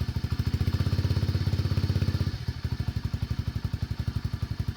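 SSR 125cc pit bike's single-cylinder four-stroke engine idling steadily on choke just after a cold start, firing in a fast, even pulse. It gets a little quieter a little over two seconds in.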